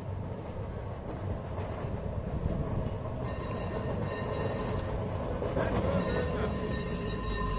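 A tram running on rails: a continuous low rumble, joined about three seconds in by a steady whine.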